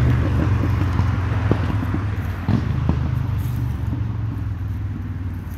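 Road traffic passing nearby: a steady low rumble, with a few faint clicks about one, one and a half, two and a half and three seconds in.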